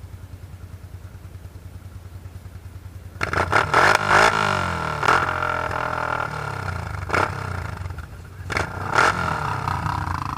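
ATV engine idling with a steady low pulse, then revved hard about three seconds in, its pitch rising and falling through several throttle pulls, with a few sharp clattering spikes.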